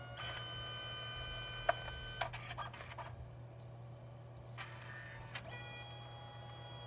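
Canon Selphy CP1300 dye-sublimation photo printer feeding its paper at the start of a print, its motor whirring in steady pitched tones. There are a few sharp clicks about two seconds in, then a brief lull, and the motor starts up again at a different pitch near the end.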